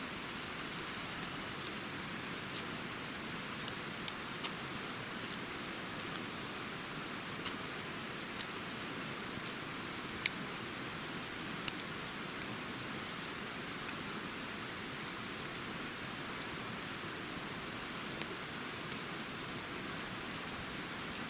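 Wood campfire crackling: scattered sharp pops, a few of them louder, over a steady hiss.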